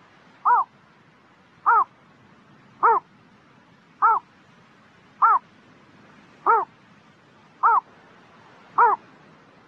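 A heron's short call repeated at an even pace, about one call every 1.2 seconds, eight times. Each call rises and falls in pitch. The steady, unchanging spacing sounds like a looped recording used as a bird-call lure.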